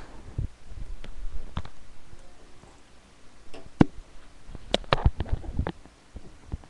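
Scattered sharp clicks and knocks of hard plastic LEGO Bionicle pieces being handled, with a quick run of them a little past the middle.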